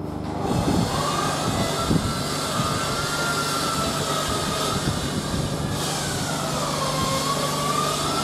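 Class 57 diesel locomotive's EMD two-stroke V12 engine running with a steady hum as it draws closer, growing louder about half a second in. A wavering high squeal from the wheels on the curving track runs over it.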